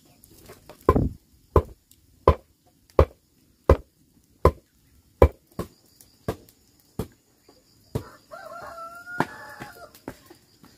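Steady chopping, a sharp blow roughly every two-thirds of a second, about a dozen in all. About eight seconds in, a rooster crows once.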